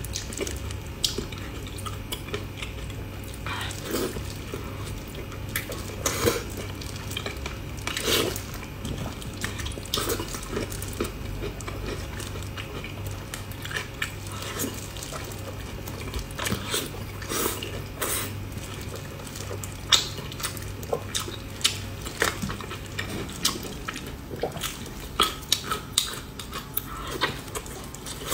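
Close-miked eating of braised pork belly: wet chewing and smacking with many short sticky clicks and squelches, coming thicker near the end. A low steady hum sits underneath and stops a few seconds before the end.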